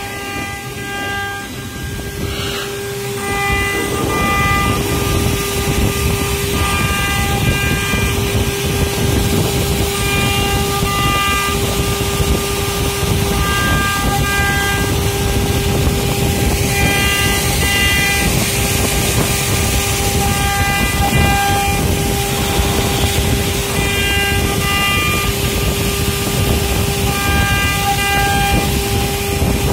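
CNC router with a water-cooled spindle carving a relief into an MDF panel: a steady high spindle whine over the rough noise of the bit cutting. Shorter whining tones keep starting and stopping as the machine's axes move.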